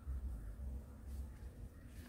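Quiet outdoor ambience dominated by a low, uneven rumble that swells and fades, like wind buffeting the microphone, with a faint hiss above it.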